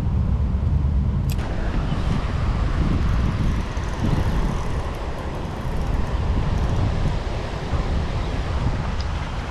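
Wind buffeting the microphone, an uneven low rumble, with a steady rushing hiss that joins about a second in.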